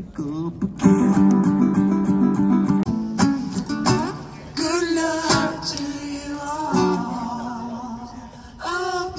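Live acoustic guitar strummed in chords, with a voice singing a melody over it and holding some notes with vibrato.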